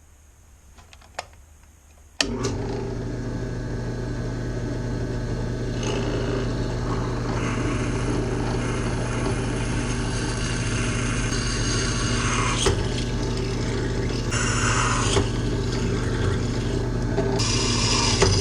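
A power tool switches on about two seconds in and runs steadily on metal, with a low hum under a grinding noise that shifts as it works.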